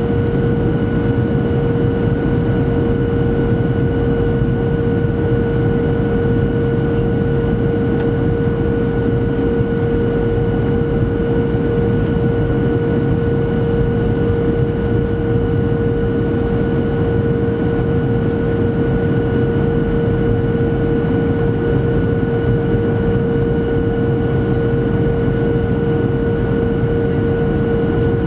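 Cabin noise inside a Boeing 737-700 descending on approach: the steady drone of its CFM56-7B turbofan engines and rushing airflow, with a constant hum-like tone over it.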